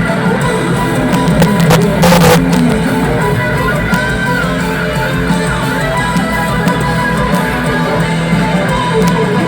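Live rock band playing an instrumental passage with electric guitar over bass, with a brief burst of noise about two seconds in.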